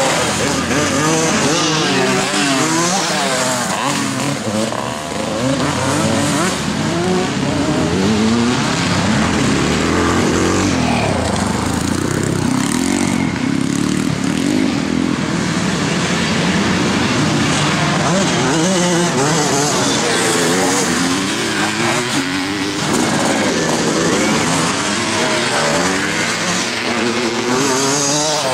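Several twin-shock motocross motorcycles racing past one after another, their engines revving up and down repeatedly as they accelerate and shift.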